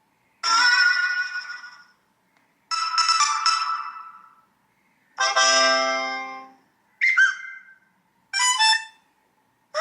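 Samsung Galaxy S24 Ultra's built-in One UI phone tones playing one after another: five short, different chimes, each about a second long, with brief silences between.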